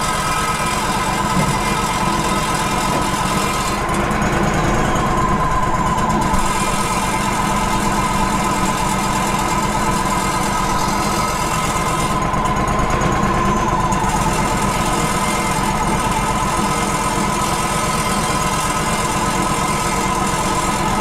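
Wood-Mizer LT35 HD portable band sawmill running steadily, its engine going with a constant high whine over it; the high hiss thins out briefly twice.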